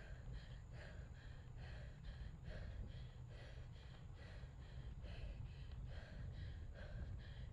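A cyclist breathing hard while pedalling, in quick, regular breaths about two to three a second, over a steady low rumble of wind on the microphone.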